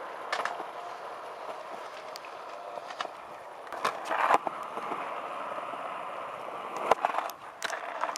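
Skateboard wheels rolling on smooth concrete, with a few sharp clacks of boards hitting the ground; the loudest come about four seconds in and again about seven seconds in.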